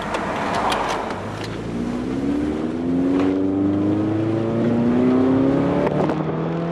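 Subaru Impreza's FB20 flat-four engine pulling under acceleration, heard from inside the cabin over road and wind noise; from about two seconds in its note climbs steadily in pitch.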